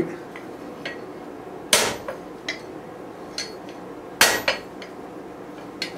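Blacksmith's hammer striking hot rebar on an anvil to straighten it: two heavy blows about two and a half seconds apart, with light taps and clinks between.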